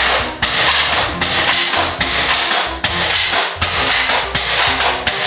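Gel-ball blaster firing a quick series of shots, the water-swollen gel balls tapping against a glass mirror, about two or three sharp taps a second. Background music with a steady beat runs underneath.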